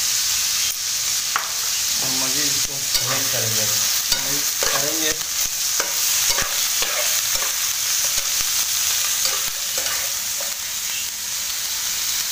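Chicken pieces sizzling in hot oil in a nonstick pan while a spatula stirs them, with scattered scrapes and light knocks of the spatula against the pan. This is the early frying stage of a karahi, with ginger-garlic paste and salt in the oil.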